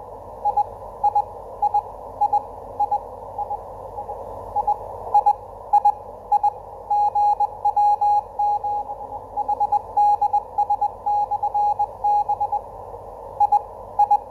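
The GW7HDS 10-metre amateur radio beacon's Morse code (CW) signal, heard through a Kenwood TS-2000 receiver: a single steady beep keyed in dots and dashes over a narrow hiss of band noise. The signal fades weaker about four seconds in and comes back strong a second or so later.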